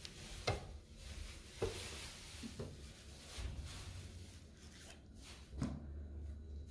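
Ripe bananas being peeled by hand and dropped into an empty plastic blender jar: quiet rubbing and tearing of the peel, with about four soft knocks.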